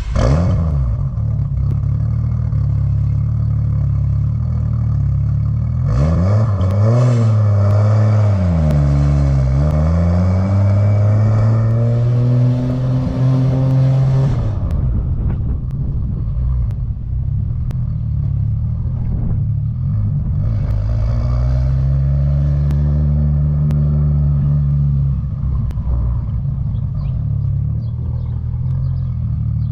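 A turbocharged 2JZ inline-six in a 1987 Toyota Supra running just after start-up. It idles steadily, then about six seconds in the revs climb, dip briefly, climb again for several seconds and fall back. A second, smaller rise and fall in revs comes later.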